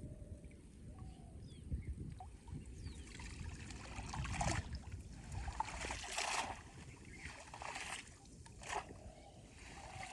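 Water splashing and sloshing in several separate bursts over a low steady rumble.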